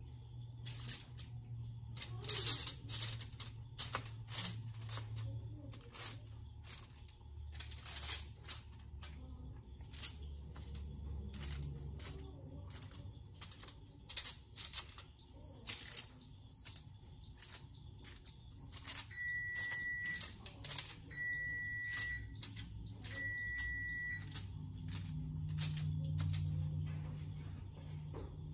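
Irregular sharp clicks and taps, one or two a second, as cookie dough pieces are set down on a foil-lined baking sheet. About two-thirds of the way in, three short electronic beeps, evenly spaced, each about a second long.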